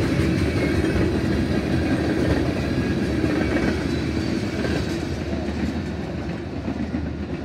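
Tank cars of a Canadian Pacific freight train rolling past: a steady rumble and rattle of steel wheels on rail, growing fainter toward the end as the cars move away.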